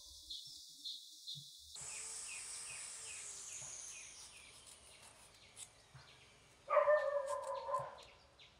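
Birds chirping in short, repeated calls at about three a second, with one louder call lasting about a second, about seven seconds in.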